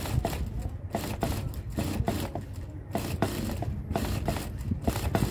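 Industrial lockstitch sewing machine stitching a shirt collar band, its needle and feed mechanism clattering rapidly over a low motor hum, in short runs with brief pauses.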